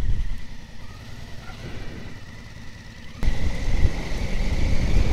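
Honda Africa Twin motorcycle on the move: a steady low rumble of engine and wind. It gets louder about three seconds in, and a steady high whine joins it.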